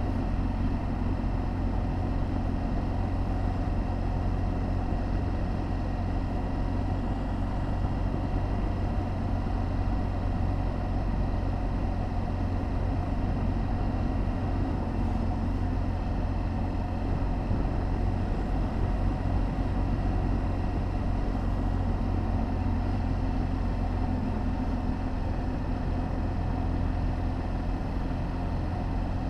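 BMW R1200GS Adventure's boxer-twin engine running steadily at a cruising speed of about 30 mph, heard from on the bike with a constant low rumble of wind and road noise. No revving, gear changes or sudden events.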